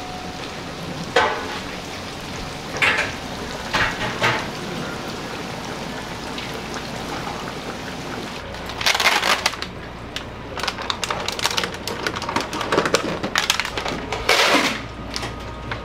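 Breaded pork cutlets sizzling in the oil of a deep fryer, with a few sharp ticks. From about halfway, loud crinkling and crackling of a plastic bag of eggs being handled.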